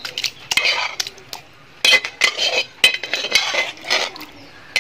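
A metal spoon scraping and clinking against a metal cooking pot in a quick, irregular series of strokes, as thick beef curry is spread over a layer of rice.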